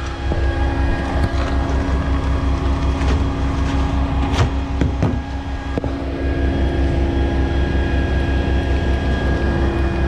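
Skid steer's diesel engine running steadily under load, powering the Mud Demon concrete pump's hydraulics, with a low pulsing rumble and steady hum. A single sharp knock about four and a half seconds in.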